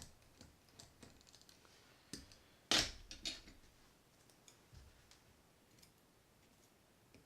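A small screw on a Penn 260 Slammer spinning reel being backed out with a screwdriver, giving scattered light clicks and a louder click a little under three seconds in. The turning is crunchy, a sign of salt-water grit and corrosion in the threads.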